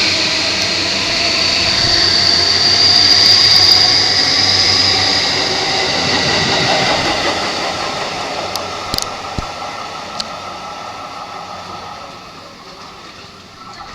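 Yokosuka Line electric commuter train pulling out: a whine from the traction motors that rises slowly in pitch, loudest a few seconds in, then fading away as the train leaves.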